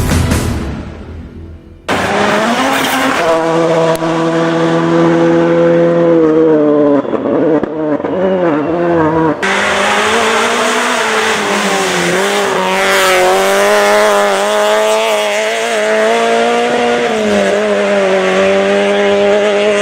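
Rally cars at speed on a special stage: engines revving hard, pitch climbing and dropping through gear changes, with tyre noise. One car's sound fades away at the start. Another cuts in abruptly about two seconds in, and a third takes over suddenly about nine seconds in.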